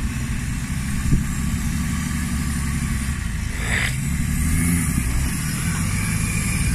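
Off-road 4x4's engine running at low speed while crawling over rocks, its note growing stronger past the middle. A single sharp knock sounds about a second in.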